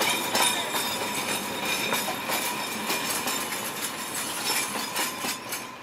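Narrow-gauge Alishan Forest Railway work train's wagons rolling slowly past: steel wheels clicking and clanking over the rails, with thin high wheel squeal running through. The sound eases off near the end.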